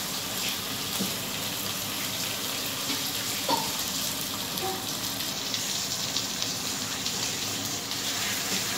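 Spiced pineapple and onion paste sizzling in oil in a frying pan as raw hilsa steaks are laid into it: a steady hiss, with a couple of light knocks of the spoon against the pan.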